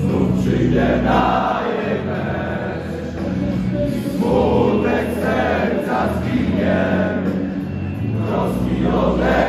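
Football ultras chanting in unison: a packed terrace of supporters singing together, loud and continuous.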